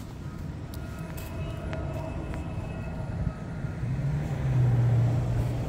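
A road vehicle driving past: a low engine rumble that grows louder and peaks about four to five seconds in.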